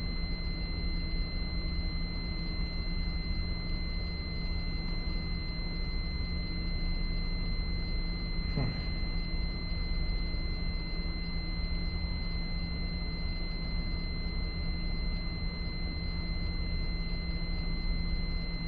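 Fire alarm panel's trouble sounder giving a steady high-pitched tone, over a steady low hum. The tone signals a trouble condition on the fire alarm system.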